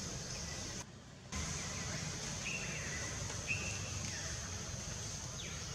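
Forest ambience: a steady high-pitched drone over background noise, with a few faint short chirps around the middle. The sound drops out briefly about a second in.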